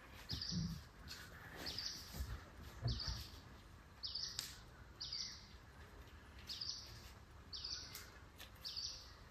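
A bird calling a single short, high chirp over and over, about once a second, against quiet forest background. A few soft low thumps come in the first three seconds.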